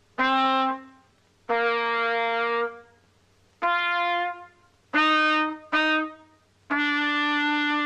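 A simple tune played on valveless brass horns of different lengths, one held note at a time. There are six bright, brassy notes that step up and down in pitch, with short silences between them.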